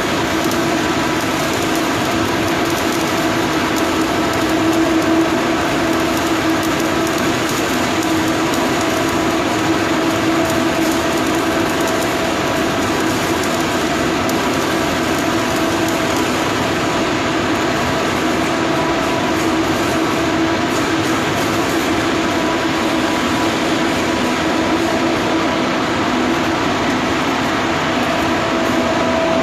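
Steady, loud machine noise: an even hiss under a constant hum, with no break or change.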